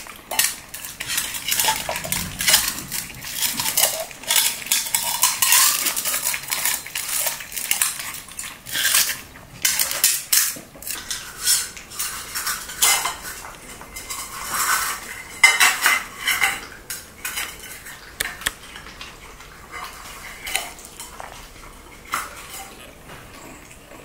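Shih Tzu puppies eating dry kibble from stainless steel bowls: rapid, irregular clinks and rattles of kibble and muzzles against the metal. The clatter thins out to scattered clicks near the end.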